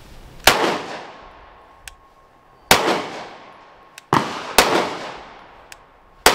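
Five shots from a Canik Mete MC9 9mm pistol, fired one at a time and unevenly spaced, with two in quick succession about four seconds in. Each shot has a tail that dies away.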